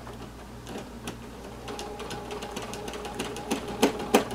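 Home sewing machine with a free-motion foot taking a few slow starting stitches: a faint motor hum with the needle clicking about two to three times a second, the clicks growing louder near the end.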